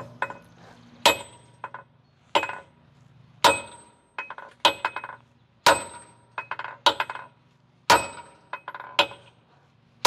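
Hammer blows on a steel bolt used as a drift, driving out a semi truck fifth wheel's mounting pin. There are about eight heavy strikes, roughly one a second, each with a ringing metallic clang and a lighter bounce or tap after it.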